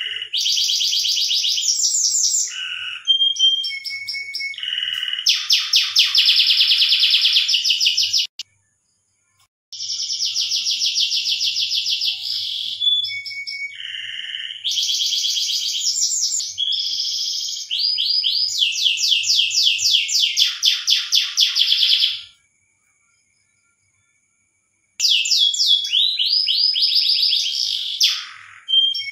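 Domestic canary singing a breeding song: long phrases of fast rolling trills and rapidly repeated high notes. The song breaks off completely twice, once about eight seconds in and again for about three seconds after twenty-two seconds.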